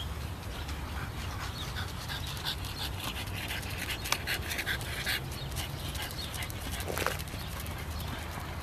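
English bulldog panting hard in quick, rhythmic breaths, about three a second, while it trots on a leash.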